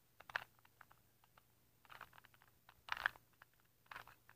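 A 2x2x2 Rubik's cube being turned by hand: its plastic layers click as they rotate, in four short bursts of quick clicks with pauses between.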